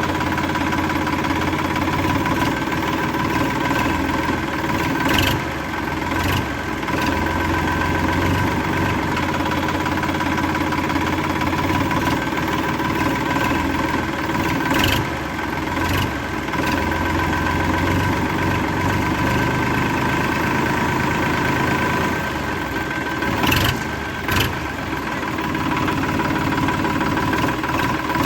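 An engine-like motor running steadily at an even pace, with a few short sharp clicks or knocks.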